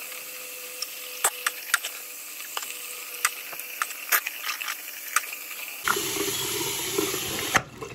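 Toothbrush scrubbing teeth: a steady bristly hiss with a scatter of sharp clicks. About six seconds in it gives way abruptly to a louder, fuller rush like running tap water.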